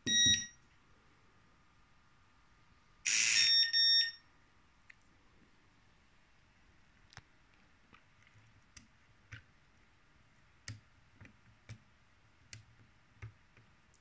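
Electronic beeps from a homemade keypad and fingerprint door lock: a short beep right as a keypad push-button is pressed, then about three seconds in a louder burst of harsh buzzing with beeps lasting about a second. Faint scattered ticks follow.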